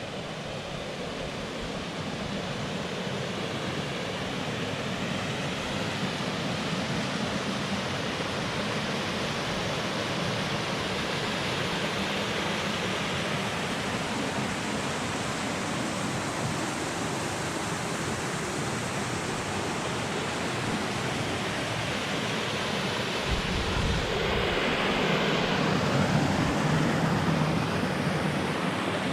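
Water of a partly frozen waterfall and stream rushing and murmuring under the ice as a steady noise, growing a little louder toward the end, with a brief deep rumble about three-quarters of the way through.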